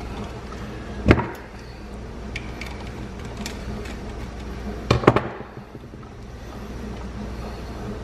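Sharp clicks and knocks of a screwdriver and wires against the metal terminal screws of a GFCI outlet being wired: two louder knocks, about a second in and about five seconds in, with a few faint ticks between, over a steady low hum.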